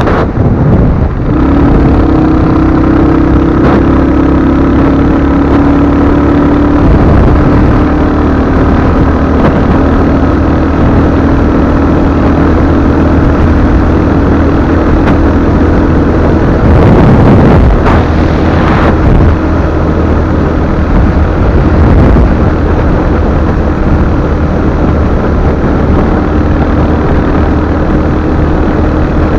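Royal Enfield Hunter 350's single-cylinder engine running at a steady cruise while riding, with wind rush over the microphone. A louder swell of noise comes about two-thirds of the way through.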